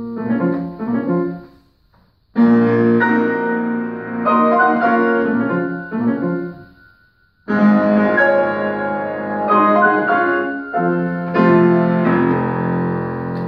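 Grand piano played solo: phrases of chords and melody, broken by brief pauses about two seconds in and about seven seconds in.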